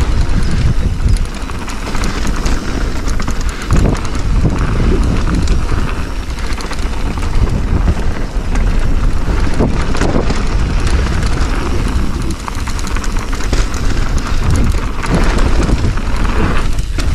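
Mountain bike riding fast down a dirt bike-park trail: tyres rolling over the ground and the bike rattling and knocking over bumps, with steady wind rumble on the microphone.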